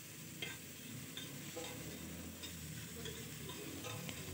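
A spoon stirring and scraping chopped onions sautéing in butter in a stainless steel pot, with a faint sizzle and light, scattered clicks of the spoon against the pot.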